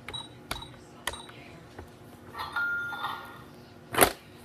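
A plastic toy cash register being played with: its buttons click three times, the register sounds a short electronic tone about two and a half seconds in, and a loud plastic clack comes about four seconds in.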